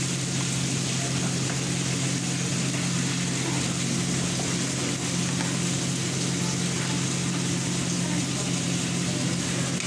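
A steady low hum with a faint hiss holds at an even level throughout, while broth is ladled from a steel pot into bowls.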